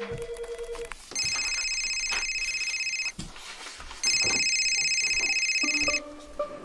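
A telephone ringing: a short steady low tone at the start, then two trilling electronic rings of about two seconds each, a second apart. Music comes in near the end.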